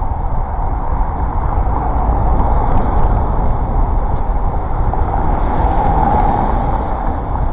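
Steady city road-traffic noise with low wind rumble, as heard from a moving bicycle, swelling a little around six seconds in.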